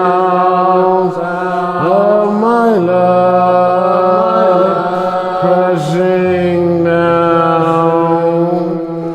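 Music: wordless sung notes, long and held, sliding in pitch now and then, over steady low bass notes that change twice.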